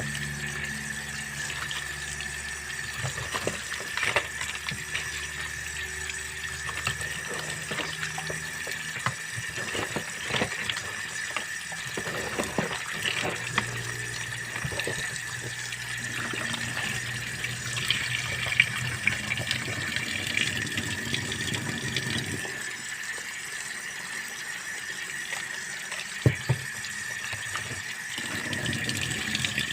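Water running steadily, with scattered light clicks and knocks throughout.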